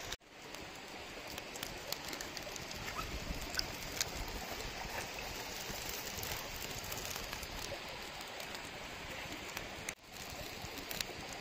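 Open wood fire crackling under an iron wok, with scattered sharp pops over a steady rushing hiss.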